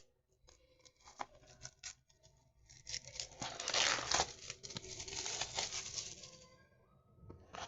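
Packaging being torn open by hand: a few faint clicks, then a run of ripping and crackling for about three seconds.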